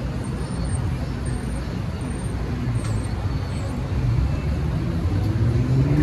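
City street traffic: a steady rumble of car and bus engines, growing louder toward the end as a vehicle comes close.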